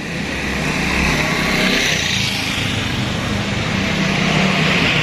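A motor vehicle engine running steadily, a low hum under a hissy wash of noise. It grows a little louder over the first second and then holds level.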